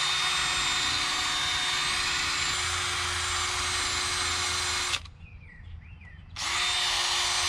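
Handheld power tool spinning a wire brush against the metal threaded end of a yacht's rudder stock, deburring and smoothing the edges of a drilled locking-screw hole. The motor runs at a steady pitch for about five seconds, stops, and starts again about a second and a half later.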